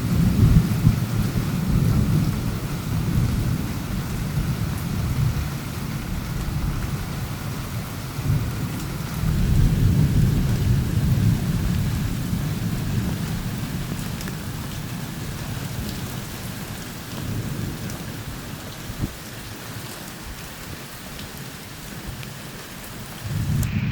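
Thunder rumbling over steady rain: one long rumble at the start and another about nine seconds in, each dying away slowly.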